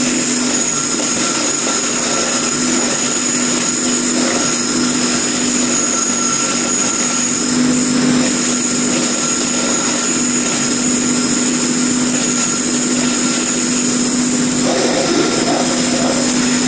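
Electric corn paste grinding mill running under load, grinding corn into wet paste as it is fed in. It makes a steady hum with a high whine over it.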